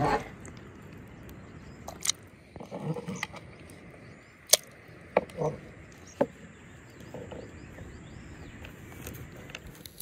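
Food-preparation handling sounds: chopped vegetables tipped into a glass bowl at the start, then a few sharp knocks and clicks of a knife and produce on a wooden cutting board, the loudest about four and a half seconds in.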